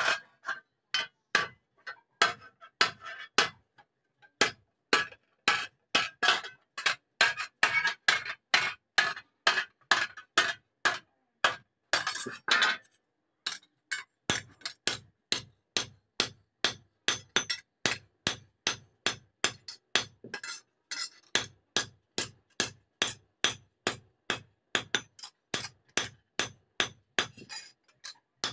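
Hand hammer striking a steel strip laid on a steel block, metal on metal. Quick, even blows about two to three a second, with a few short pauses between runs.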